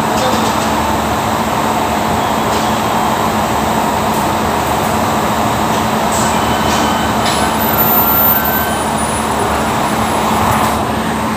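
Steady, loud running noise of glass-processing factory machinery, with a constant low hum and a few faint ticks.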